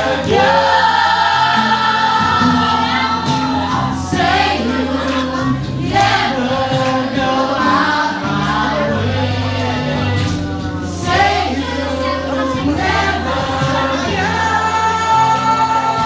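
Music with singing voices over a bass line that steps from one held note to the next.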